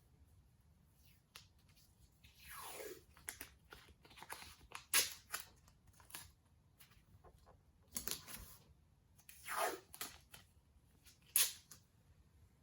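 Tape pulled off a roll and torn, in several short scratchy bursts, some with a falling screech, and light ticks and taps between them.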